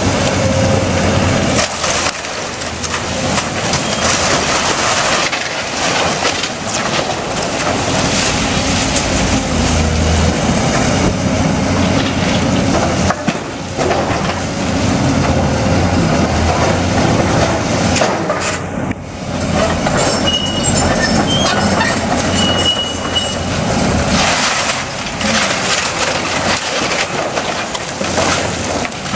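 Hydraulic excavator tearing down a timber-framed building: its diesel engine runs under load while wood beams crack and splinter and debris crashes down, loud and without a break.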